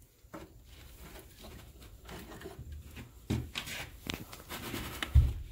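Rustling, scraping and handling noises of someone rummaging among debris and loose items, with scattered sharp clicks and a dull thump near the end.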